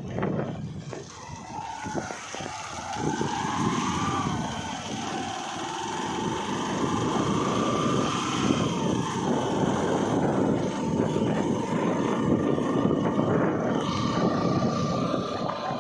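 A motor vehicle engine running on the move, with a steady rumble and a whine that rises about four seconds in, dips, then holds steady.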